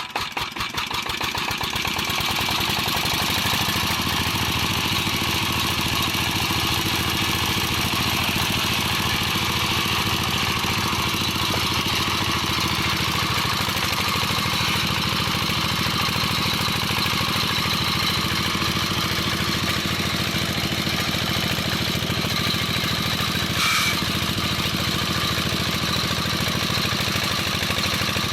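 Old stationary diesel engine starting up: separate firing beats come faster and louder over the first two seconds until it runs steadily at speed. A single short knock sounds near the end.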